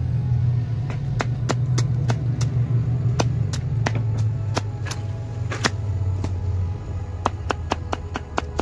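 Blade chopping into a banana stem: sharp, irregular knocks, about two to three a second. Under them runs a loud, low engine drone that eases off near the end.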